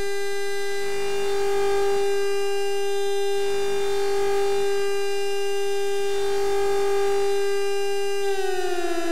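Homemade ghost-detector synth: an Atari Punk Console tone whose pitch is set by an electric-field sensor, played through a reverb circuit. It holds one steady siren-like tone, then a little after eight seconds in it wavers and slides slightly lower as the sensed field changes.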